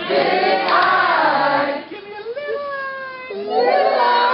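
A group of voices, children among them, singing and calling out together with overlapping pitches; a single voice carries on alone in the middle before several join in again near the end.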